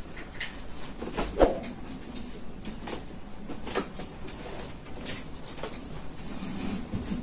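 Rustling and handling noises as packages and clothes are picked up and moved about, with scattered light clicks and one louder knock about a second and a half in.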